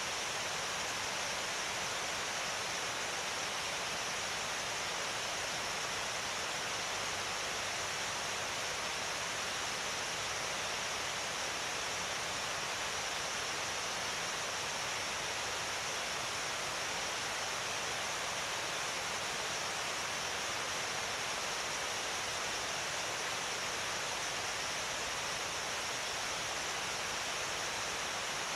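Steady, even rushing noise like falling water, from the natural-draft cooling towers of a power station, where cooling water rains down inside the towers.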